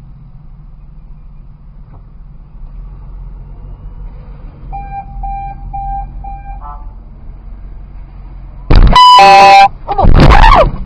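A car horn blasts loud and long for about a second as a car in front reverses toward it, followed at once by a loud shout. Earlier, four short beeps sound about halfway through, over the low hum of an idling car.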